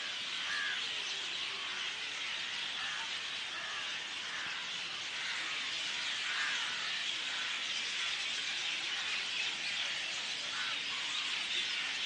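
A dense, steady chorus of many wild birds chirping and calling at once from the treetops.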